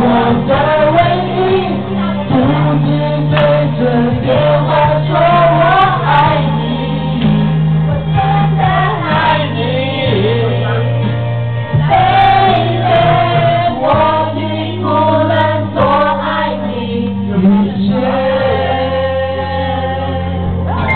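Karaoke: several men and women singing together into microphones over a backing track with a steady bass line.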